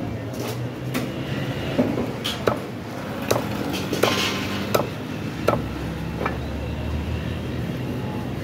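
Meat cleaver chopping raw chicken on a wooden log chopping block: about eight sharp, irregularly spaced thwacks. A steady low hum sits underneath.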